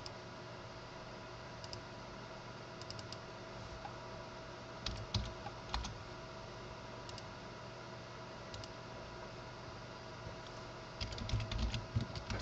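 Computer keyboard keys clicking: a few scattered keystrokes, a short cluster about five seconds in, and a quick run of typing near the end as a file name is entered. A steady faint electrical hum runs underneath.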